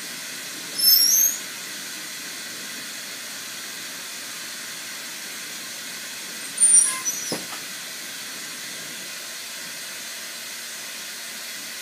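Steady hiss of a glassworking bench torch flame burning, with two short high-pitched squeaks about a second in and again around six and a half seconds.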